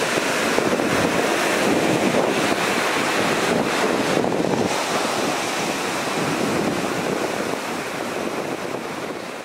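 Ocean surf breaking and washing up a sandy beach, with wind buffeting the microphone. The sound grows fainter near the end.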